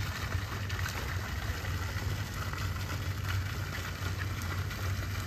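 A steady, low, engine-like hum under an even hiss.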